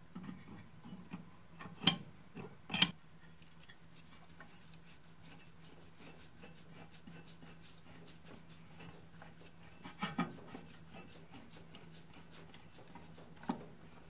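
Metal parts of a cut-open scroll compressor knocking together as the scroll and head assembly is set down onto the compressor frame: two sharp knocks about a second apart, then faint ticks and rubbing as the parts are handled, with a softer knock twice later.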